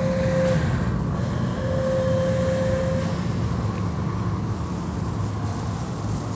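Automatic tunnel car wash machinery running, heard from inside the car: a steady low rumble of motors and water spray. A steady mid-pitched tone sounds twice in the first three seconds.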